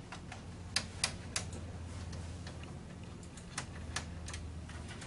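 Scattered light clicks and ticks of a Phillips screwdriver working the retaining screws of a DL06 PLC's removable terminal block, loosening them, with a faint steady low hum underneath.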